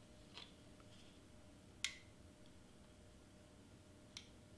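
Near silence with a few light, sharp clicks, the sharpest a little under two seconds in: handling noise from a cordless Surebonder hot glue gun as it is taken from its stand and used on cardstock.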